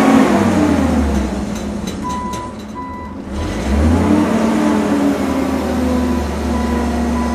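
Heavy engine of a truck crane running, dropping and picking up speed, with a reversing alarm beeping in short repeated beeps.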